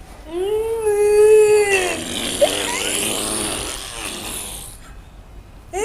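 A long, held howl-like call, one steady pitch lasting about a second and a half, made as a "funny sound", followed by a few seconds of noisy, breathy sound.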